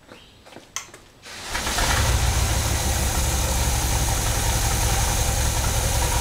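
A 1969 Corvette's 350 Chevy small-block V8 fires up about a second and a half in and settles into a steady idle.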